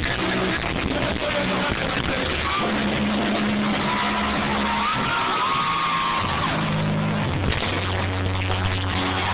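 A live rock band plays loudly at a concert. Held bass notes change every second or so under a high line that slides up and down.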